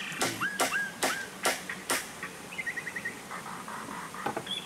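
Five hammer blows on wood, roughly one every half second, ending about two seconds in. Birds chirp between and after the blows.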